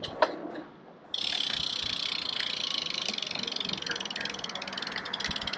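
Bicycle freewheel ticking rapidly while coasting. It starts suddenly about a second in and fades toward the end.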